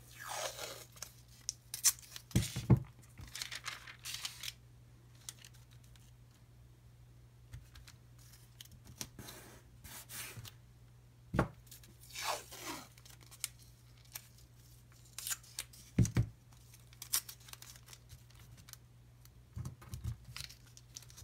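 Blue painter's tape being pulled off the roll and torn in short rips, with tracing paper rustling as hands smooth it and press the tape down. A few sharp knocks on the desk come in between.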